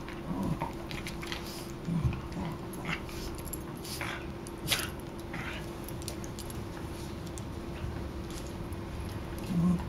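Two small dogs play-fighting, with short low growls near the start, about two seconds in and near the end, and a few sharp snuffs or mouth snaps in between.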